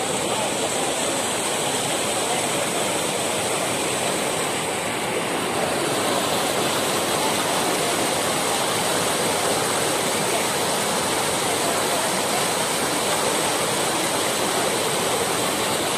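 Brown floodwater of a swollen river rushing steadily over a submerged concrete causeway and pouring off its edge.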